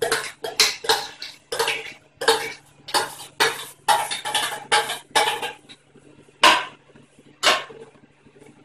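Steel utensils clinking and scraping against a metal cooking pot: a quick run of strikes, two or three a second, for about five seconds, then two single clinks a second apart. A faint steady hum runs underneath.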